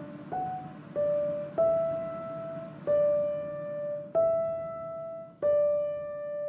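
Background piano music: a slow line of single notes, six in all, each struck and left to ring out.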